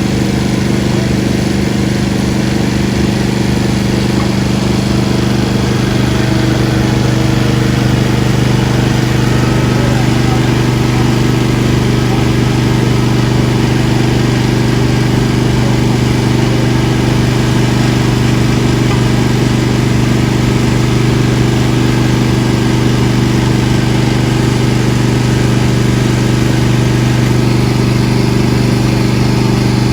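Small engine running steadily at a constant speed, a loud, even hum that never changes pitch.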